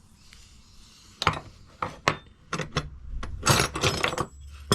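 Steel wrenches clinking against each other as they are set down and picked up from a pile. There are a few sharp separate clinks, then a longer clattering rattle past the middle as the pile is rummaged.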